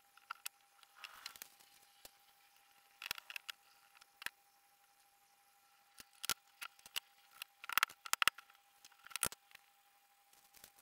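Scattered light knocks and taps of flat-pack furniture board panels being handled and fitted together, with a brief rustle about a second in and a cluster of quick knocks near the end.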